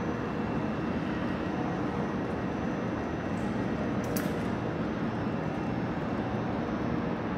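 Steady hum and rumble of a railway station platform with a train standing at it, with a faint steady whine running through it. A single brief click about four seconds in.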